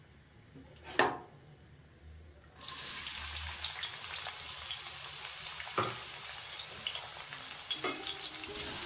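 Chopped onion and green chillies sizzling in hot oil with cumin seeds and dried red chillies for an onion tempering. The pan is quiet except for a single click about a second in, then a steady sizzle starts suddenly a little under three seconds in, with a couple of light knocks.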